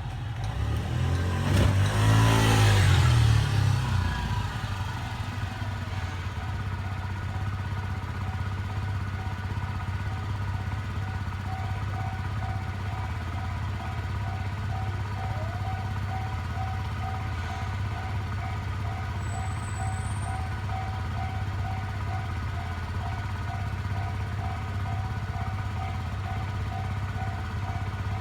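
Japanese railway level-crossing alarm ringing with its repeating electronic tone. A road vehicle passes close about a second in, its pitch falling as it goes by, and is the loudest sound.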